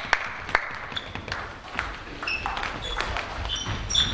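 Table tennis ball clicking off bats and table, the rally stopping about half a second in. After that, a few scattered ball taps and short high squeaks of sports shoes on the hall floor.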